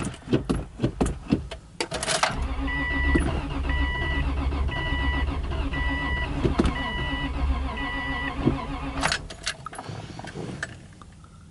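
Starter motor cranking the 2004 Subaru Legacy Outback's engine for about seven seconds without it catching: it turns over but does not start. A warning chime beeps about once a second while it cranks, with clicks from the key before and after.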